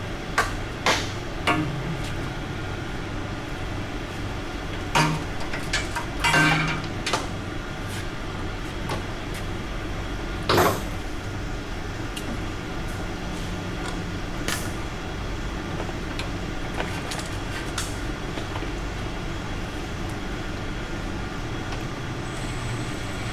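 Scattered clanks and knocks of tools and metal truck parts being handled during a front-end teardown, over a steady background hum. One short cluster of quick knocks comes about six seconds in, and a single louder knock comes near the middle.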